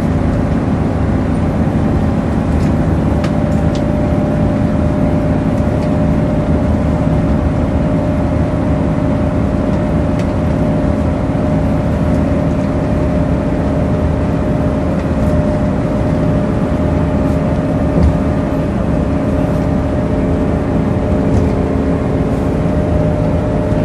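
Volvo Citybus double-decker heard from inside the passenger saloon while under way: a steady engine drone with a high, even whine over it and a low rumble, plus light rattles and a single small knock a little after the middle.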